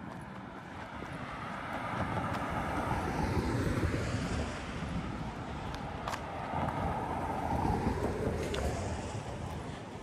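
Road traffic: vehicles passing on the street, the tyre and engine noise swelling twice, loudest about four and eight seconds in.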